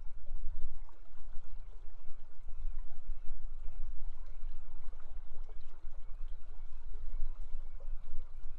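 River water flowing: a steady rushing with a deep low rumble underneath.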